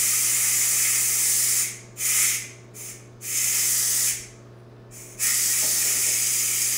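Ninja Foodi pressure cooker venting steam through its pressure-release valve with a loud hiss, the manual release of pressure after cooking. The hiss breaks off and restarts several times as the vent is worked slowly, coming back steady near the end.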